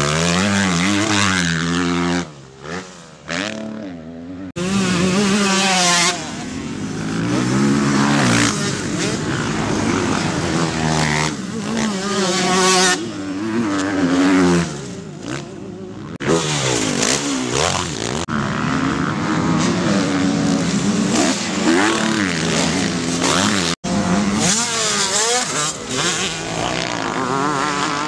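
Motocross bike engines revving hard on a dirt track, the pitch climbing and dropping again and again through gear changes and throttle-offs as the bikes pass. The sound cuts abruptly several times between passes.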